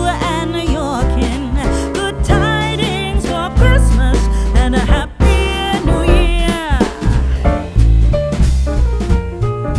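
Background music with drums, bass and singing; the sung line wavers with vibrato and slides down in a long falling glide about two-thirds of the way through.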